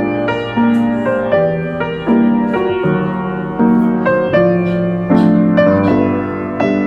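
Background piano music: a gentle melody over chords, notes struck about twice a second and left to ring.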